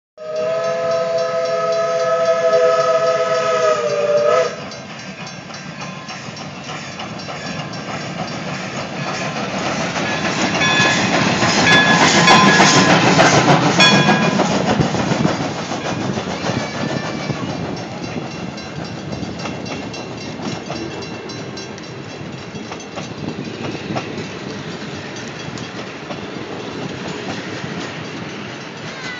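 Steam locomotive No. 18 blows its whistle, a held chord of several notes that sags in pitch as it cuts off after about four seconds. The engine then runs past, loudest about halfway through, and the passenger cars roll by behind it with steady wheel clatter on the rails.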